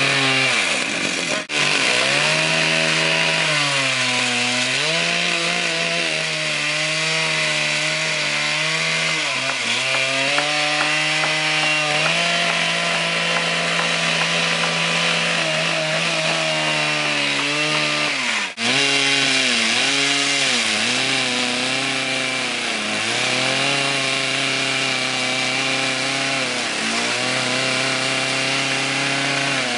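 Two-stroke Husqvarna 3120 XP chainsaws driving a double-ended 6-foot bar run at high revs through a tree trunk. The engine pitch repeatedly sags under cutting load and climbs back. The sound cuts out briefly twice.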